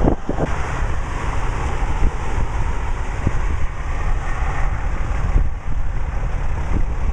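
Gusty wind buffeting the microphone: a loud low rumble with scattered short thumps, over a steady rushing hiss.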